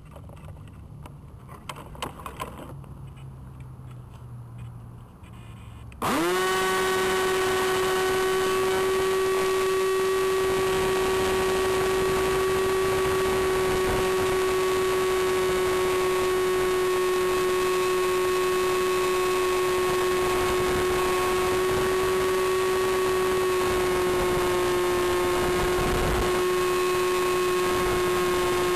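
A few faint knocks, then about six seconds in the Aerobird Challenger's electric motor and propeller spin up abruptly and run steadily at high speed: a loud, constant whine that drops slightly in pitch near the end.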